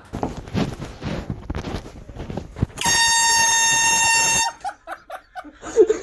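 An air horn gives one long, loud, steady blast of about a second and a half, cutting off sharply; it comes after some rustling and clatter, and a person's voice cries out soon after it.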